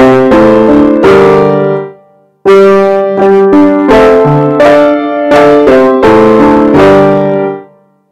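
Background music: chords played in short phrases, each note dying away, with a brief pause about two seconds in and another near the end.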